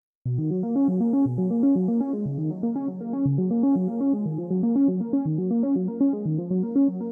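Background music: an electronic keyboard melody of quick, evenly paced notes, starting a moment in out of silence.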